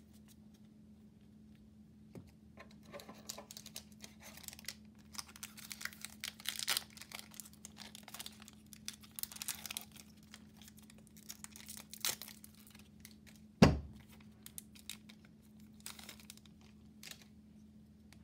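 A foil-lined Magic: The Gathering booster pack wrapper being torn open and crinkled by hand, in irregular rustling spurts. One sharp thump near two-thirds of the way through is the loudest sound, over a faint steady low hum.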